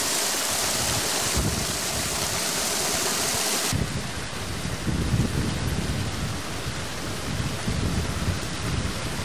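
Outdoor noise with no clear single source: a steady, even hiss, then about four seconds in an abrupt change to a gusty low rumble of wind on the microphone.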